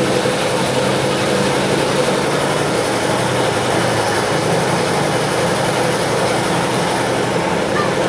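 A steady engine hum that keeps going without a break.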